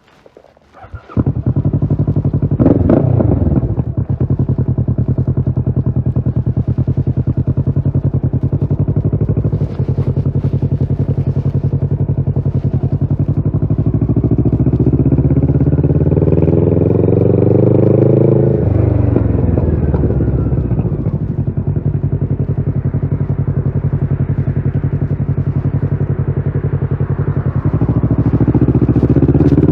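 Kawasaki Ninja 650's parallel-twin engine, breathing through a Shark SRC-4 full aftermarket exhaust, starts about a second in with a quick blip of the throttle. It then settles into a steady idle. Its revs climb slowly and fall back around the middle, and climb again near the end.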